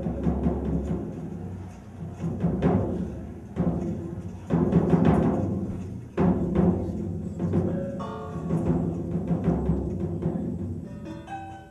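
Live improvised electronic music for laptops and percussion: several low, rumbling drum-like swells that start abruptly and fade away, with quick runs of short pitched notes about eight seconds in and again near the end.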